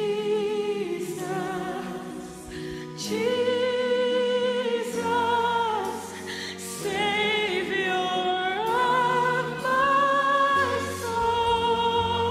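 A woman singing a slow gospel solo, holding long notes with vibrato and sliding between them, over sustained accompaniment chords.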